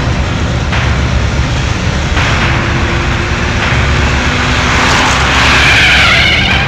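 Car engine racing as a Hindustan Ambassador speeds over a rough dirt track, with a dense low rumble throughout. A loud hiss of tyre and gravel noise swells up about five seconds in.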